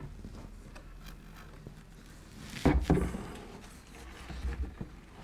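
Knocks and scrapes of a wooden model railway baseboard section being lifted out and handled, the loudest bump about two and a half seconds in and smaller knocks near the end.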